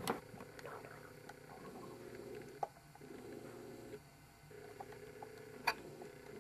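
Quiet room tone: a faint steady hum with a few light handling clicks, and one sharper click near the end.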